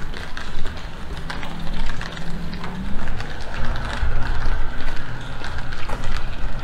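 Rainy city street sounds: a motor vehicle's engine running past, with many small ticks and clicks over a steady wash of noise.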